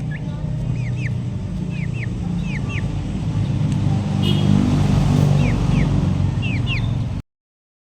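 A loud, low, steady rumble like a running motor vehicle engine, with many short, falling bird chirps repeated over it. The sound cuts off suddenly about seven seconds in.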